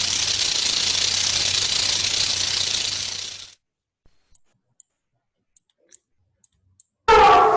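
Recorded snake hissing: a steady, even hiss lasting about three and a half seconds, then cutting off. A short voice sounds near the end.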